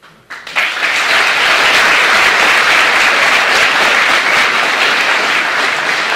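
Audience applauding: the clapping breaks out about half a second in and continues steadily.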